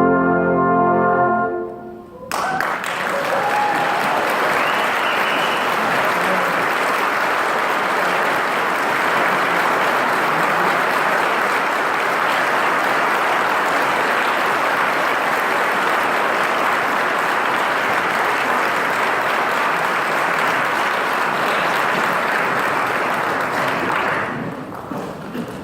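A brass ensemble holds a final chord that stops about two seconds in. Audience applause follows, steady for about twenty seconds, then fading near the end.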